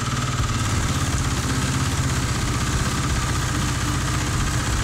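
Kawasaki KLX250S single-cylinder four-stroke engine idling steadily with an even pulse, running while its ignition timing is checked with a timing light.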